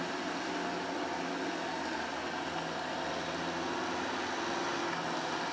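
Kubota M6040SU tractor's diesel engine running steadily under load while it drives a rear rotary tiller through wet paddy mud.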